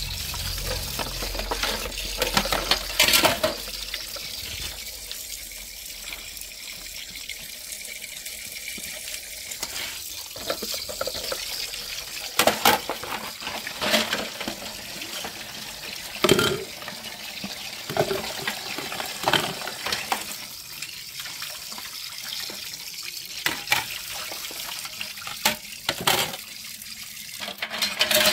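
Tap water running steadily into a basin while dishes are washed by hand, with sharp clinks and knocks of crockery every few seconds.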